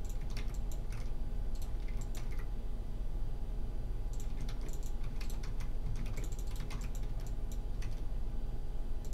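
Computer keyboard keys clicking in irregular, scattered presses, with a steady faint hum underneath.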